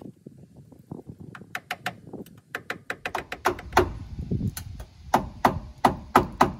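Repeated hammer blows, light and irregular at first, then a steady run of about three hard strikes a second in the second half.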